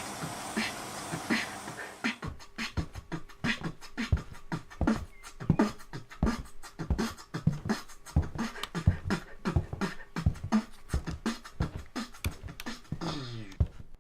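Fast rhythmic percussive beat of short thumps and clicks, about five hits a second, with a wavering falling sound near the end.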